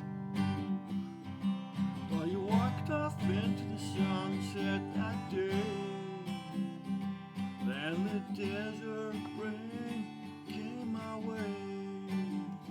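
Acoustic guitar strummed steadily, with a wavering, sliding melody line over it from about two seconds in.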